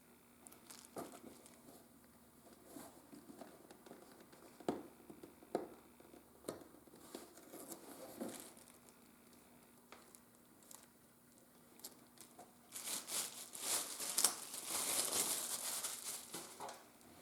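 Hand leatherworking at a bench: scattered light taps and clicks of tools and leather being handled, then, about thirteen seconds in, a few seconds of denser scratchy rubbing that stops shortly before the end.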